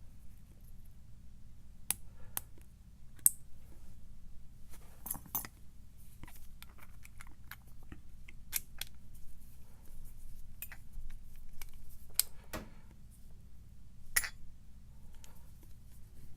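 Small metal parts of an American 1100 padlock being reassembled by hand: scattered light clicks, ticks and clinks of pins, springs and wafers against the lock body and tools, over a steady low hum.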